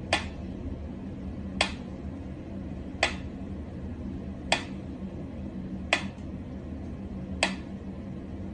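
Pyramid-shaped mechanical metronome ticking slowly and evenly, six sharp clicks about a second and a half apart, over a steady low hum.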